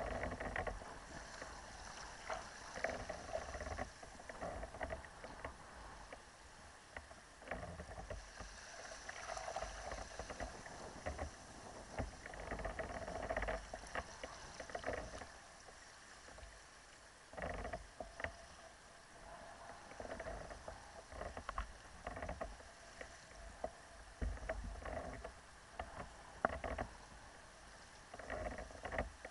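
Choppy water splashing and slapping against a kayak's hull as it runs under sail in a fresh wind, in uneven surges, with wind rumbling on the microphone.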